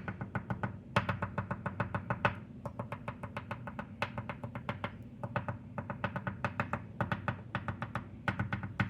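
Oil pastel tapped rapidly on paper to stipple dots: a quick run of small taps, several a second, with a few short pauses.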